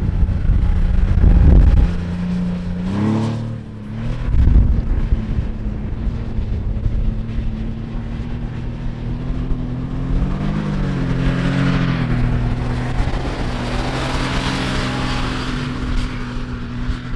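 A car engine running at a steady pitch, with a brief rise in revs about three seconds in and another around ten seconds. Heavy wind buffets the microphone during the first few seconds.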